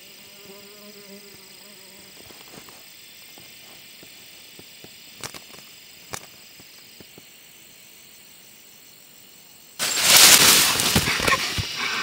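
Crickets and other insects drone steadily with a few soft clicks. About ten seconds in, a sudden loud rustling, flapping clatter breaks out and keeps going: a barred buttonquail struggling with its wings in a string snare.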